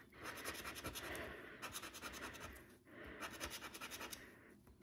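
A plastic scratcher rubbing the coating off a scratch card in quick, repeated strokes, in two spells with a brief pause near the middle.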